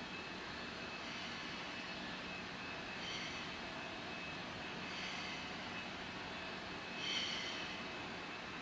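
Steady low hiss and hum of room noise, with soft breaths about every two seconds as she works through leg lowers. The loudest breath comes near the end.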